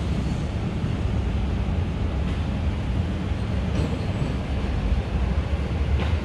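Steady low rumble of background noise with a faint hiss above it, and a few faint ticks about two, four and six seconds in.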